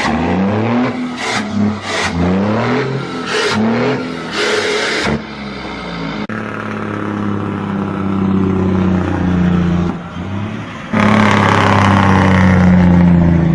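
Vehicle engine revved again and again, each rev rising in pitch, for the first few seconds. It then settles into a steady drone. Louder wind-like rushing joins it for the last couple of seconds.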